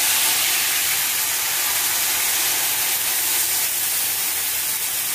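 Loud, steady hissing sizzle of water poured into a hot mustard-oil tempering of whole spices and red chilli in a kadhai, the water spitting and steaming on the hot oil and easing off slightly.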